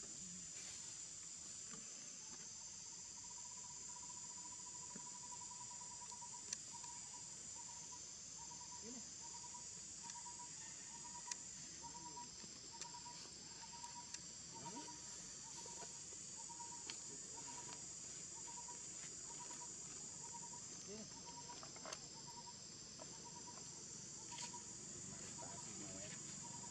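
Faint, steady, high-pitched insect chorus. From about two seconds in, a repeated single note sounds about twice a second, with a few soft clicks.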